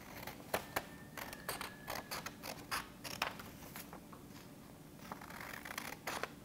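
Scissors snipping through printer paper: a run of short, sharp cuts, a quieter pause, then paper rustling as the sheet is handled and a couple more snips near the end.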